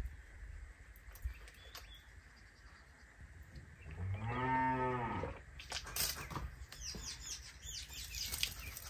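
A cow mooing once, about four seconds in: a single call of about a second that rises and falls in pitch. After it comes a run of short wet splashes and spits of mouth-rinsing water.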